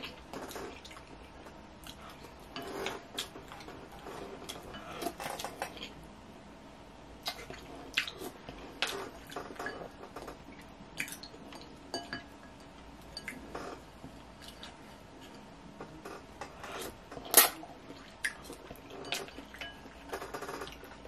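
A plastic fork and a wooden spoon scraping and clinking against a glass bowl while the last noodles are fished out, in short, irregular clicks and scrapes. The sharpest clink comes about 17 seconds in.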